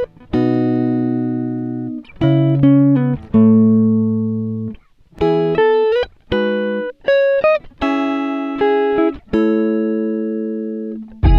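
Background music of plucked guitar notes and chords, each note starting sharply and fading slowly, with a couple of sliding notes.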